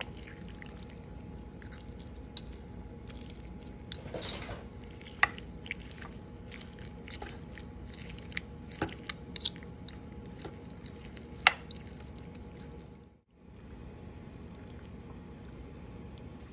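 Two metal forks shredding braised pot roast beef in its gravy: soft wet squishing, with sharp clinks of the forks against the pan scattered throughout, over a steady background hiss. The sound drops out briefly about 13 seconds in.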